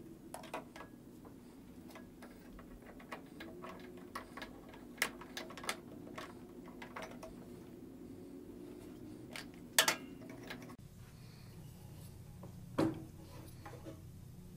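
Scattered small clicks and taps of needle-nose pliers working the metal hose clamps and fuel hose among the engine parts. The sharpest clacks come nearly ten seconds in and again about three seconds later.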